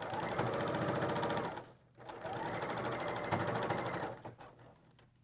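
Bernina serger stitching a four-thread overlock seam through layered fabric and a vinyl pouch edge, its needles and knife running at a fast, even stitch rate. It runs twice, for about two seconds each, with a brief stop between.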